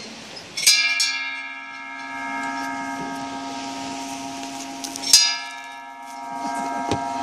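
A large hanging wish bell struck twice, about four and a half seconds apart; each stroke rings on in a long, steady tone that is still sounding when the next begins.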